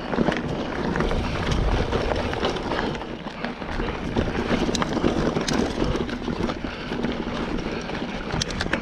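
Mountain bike being ridden fast down a dirt trail: tyres rumbling over the ground, the bike rattling with many small knocks and clicks, and wind on the helmet camera's microphone.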